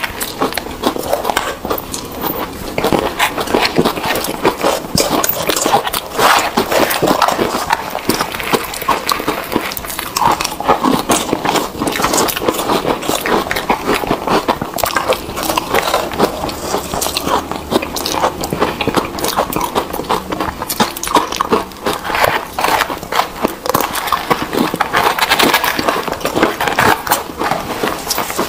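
Close-miked crunching and chewing of crumbly frozen ice eaten by the spoonful. It is a dense, continuous crackle, with two eaters' crunching layered together.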